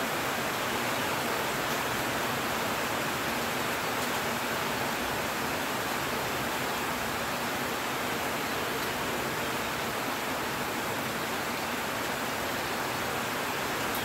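Heavy rain falling steadily on dense foliage and a corrugated metal roof: an even, unbroken hiss.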